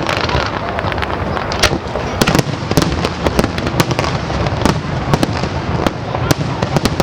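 Fireworks display: a dense, continuous barrage of shells bursting, with many sharp cracks and bangs over a steady low rumble.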